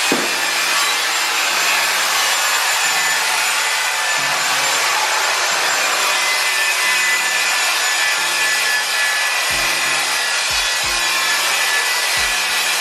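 Steady, loud rushing noise of renovation work in the room, a machine or tool running without a break. A low line of stepping notes, likely background music, sits underneath.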